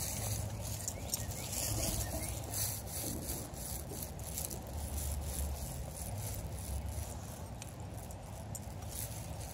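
Light rattling and scattered small clicks over a low rumble: the jingle of dog collar tags and footsteps on a walk.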